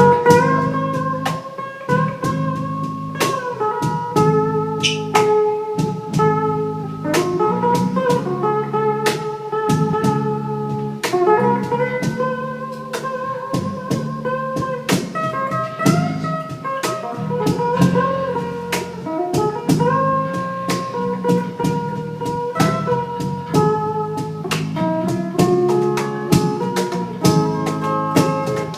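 Live band playing an instrumental break with no singing. A lead guitar plays a sustained melody with bent notes over bass and a steady drum beat.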